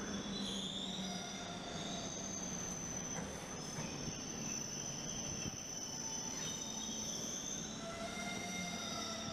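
Suburban train pulling into a station platform, its wheels squealing in several long, steady high tones over a low rumble.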